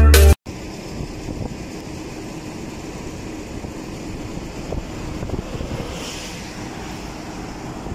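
Music cuts off just after the start; then an XCMG asphalt paver's engine and machinery run steadily while laying a fresh asphalt layer.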